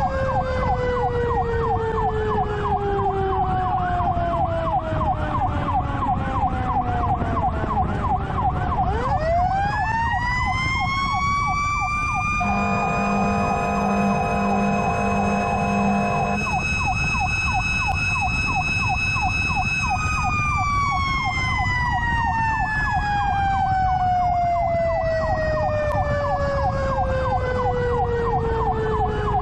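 Fire truck running with its electronic siren on a fast yelp throughout. Over it a mechanical siren winds down, is spun up again about nine seconds in to a steady high wail, and coasts down with falling pitch from about twenty seconds. A horn sounds for about four seconds in the middle.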